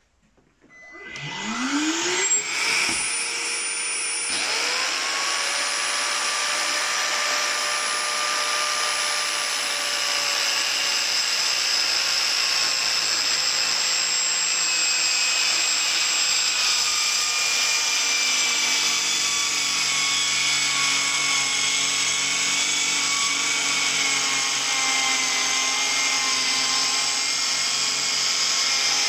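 A vacuum cleaner spins up with a rising whine, then about four seconds in the ALEAPOW K1A 580W mini circular saw starts with a second quick rise. The two run together steadily as the saw cuts through 24 mm blockboard, its pitch sagging slightly under load in the second half.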